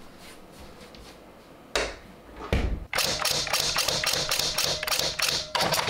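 A dull thump, then typewriter keys clacking in a quick run of strikes, with a brief pause near the end.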